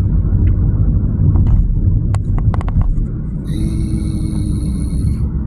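Car interior road noise while driving: a steady low rumble of engine and tyres. There are a few short clicks around the middle and a high steady tone for about two seconds in the second half.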